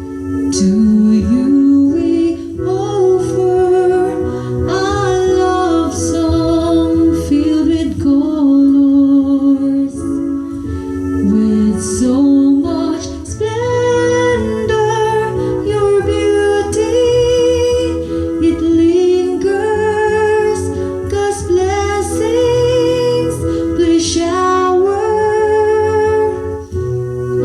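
Music: a song with a sung melody, held notes wavering with vibrato, over instrumental backing with a steady bass and light percussion.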